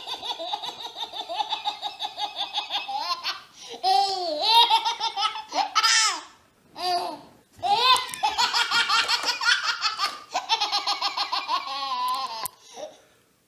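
Baby laughing hysterically: long runs of quick, rhythmic belly laughs at about five a second, broken by a couple of short pauses, and stopping shortly before the end.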